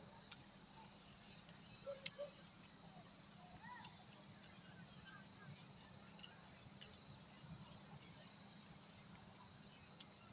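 Crickets chirping steadily, a faint, fast, even high-pitched pulsing that never stops, with a few soft clicks.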